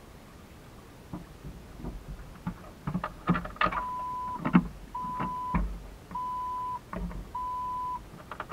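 A series of knocks and clicks, with four steady electronic beeps in the middle, each about half a second long and evenly spaced a little over a second apart.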